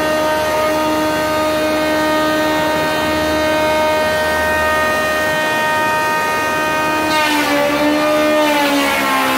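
Stationary spindle moulder (shaper) running with a steady high whine. About seven seconds in, a board is fed into the cutter for a 45-degree edge: the whine drops in pitch under the load and a rush of cutting noise comes in.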